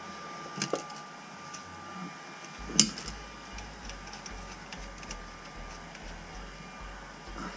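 Small clicks and knocks of a sink's pop-up drain parts being handled and fitted by hand at the basin outlet, with a sharp click about three seconds in.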